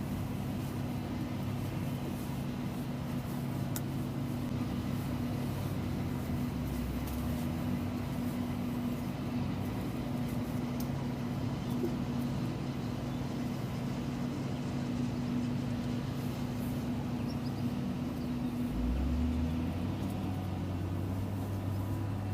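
Heavy diesel farm machinery running steadily at maize harvest, a forage harvester chopping maize with tractors alongside; the low engine note shifts in pitch about nineteen seconds in.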